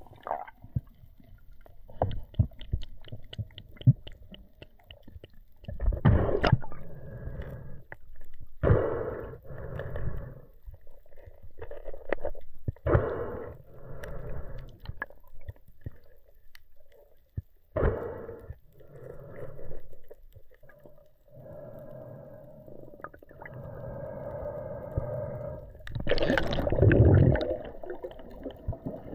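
Muffled underwater noise heard through a mask-mounted camera as a freediver handles a speared fish and his speargun: uneven bursts of gurgling rumble and knocks with a few sharp clicks, the loudest burst near the end.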